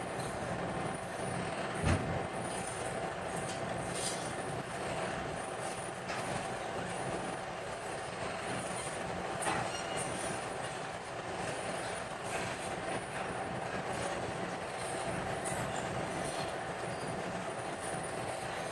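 Steady mechanical running noise with a constant hum and scattered short clicks, and a sharper knock about two seconds in.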